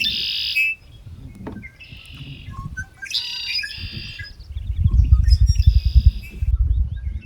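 Songbirds singing in several short bursts of high, chirping song. A low rumble on the microphone rises about halfway through and is the loudest sound for a couple of seconds.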